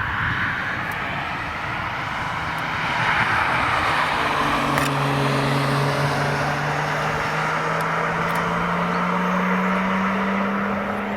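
A car on a wet track: a steady hiss of tyres on wet tarmac, then from a little under halfway an engine note that climbs slowly in pitch as the car accelerates.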